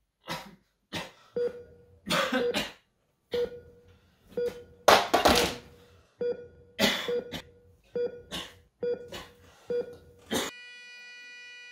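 A man coughing and gasping in repeated harsh fits, over short electronic heart-monitor beeps. About ten seconds in, the beeps give way to one continuous flatline tone.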